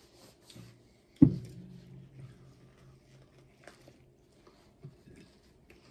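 A single dull thump on the table about a second in, followed by a low hum for about two seconds, over soft rustling of a paper napkin as hands are wiped and quiet chewing.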